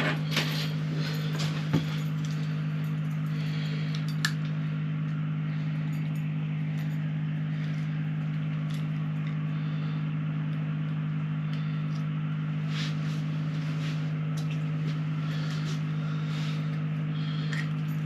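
Steady mechanical hum of a motor running, with a few light clicks and knocks in the first two seconds and another around four seconds in.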